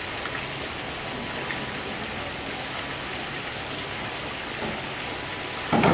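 Steady rain-like hiss of water over an outdoor diving pool. Near the end comes a sudden louder splash as the two synchronized divers hit the water.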